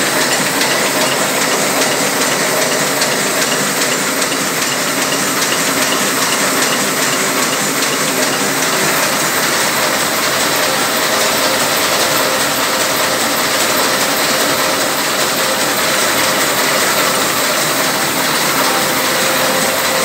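Ryobi 582T sheet-fed offset printing press running: a steady mechanical clatter of rollers and gears with a fast, even ticking.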